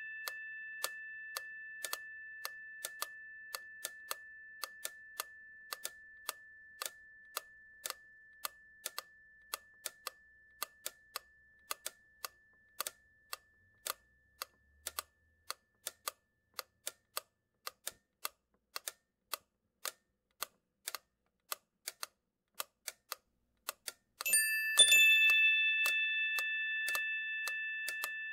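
Steady ticking throughout, over a chime-like ringing tone that fades away slowly. About 24 seconds in, the chime is struck again, loud and clear, and rings on while slowly dying away.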